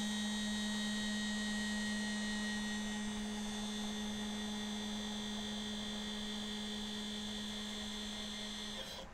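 Stepper motor driving a linear stage along its axis at a steady jog of 45 inches per minute, giving a constant whine that stops near the end as the move finishes. It runs smoothly with no stall at this rate.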